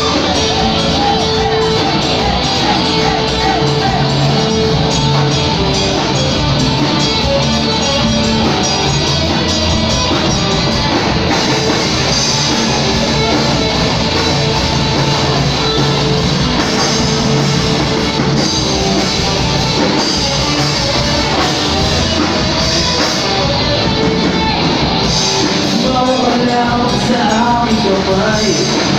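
Filipino rock band playing live with electric guitar and bass guitar, loud and steady.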